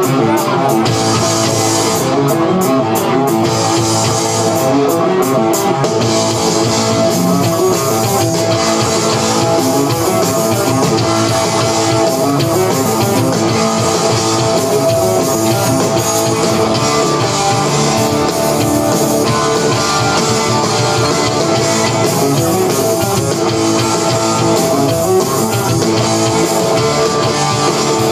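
Loud rock music: guitar over a drum kit, playing steadily with no break.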